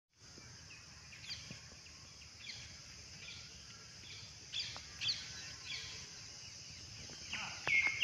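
Scattered short bird chirps, roughly one a second, over a steady high hiss of rural outdoor ambience. The calls grow louder near the end.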